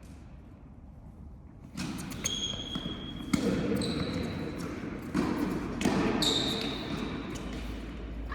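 Tennis rally on an indoor court: a tennis ball struck by rackets and bouncing, with sharp hits and short squeaks starting about two seconds in, ringing in a large hall.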